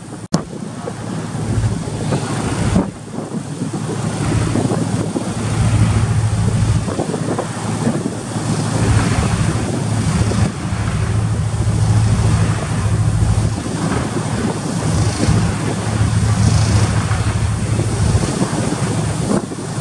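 Strong wind buffeting the microphone in gusts, over the rushing of rough sea, as heard aboard a ship in high waves.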